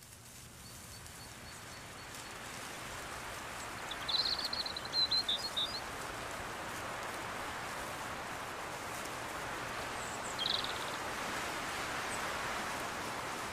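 Woodland ambience fading in: a steady rushing of wind through the trees' leaves, with a bird trilling for about two seconds about four seconds in and a short bird chirp around ten seconds in.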